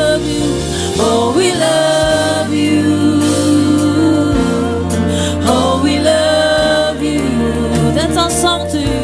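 Live gospel worship music: a woman sings long, sliding held notes into a microphone over a band with bass, keyboard and drums.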